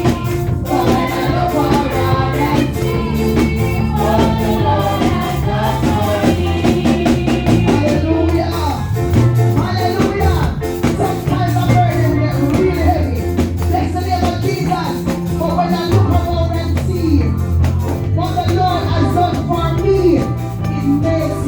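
Live gospel praise music: singing over a band with a steady bass line and an even percussion beat.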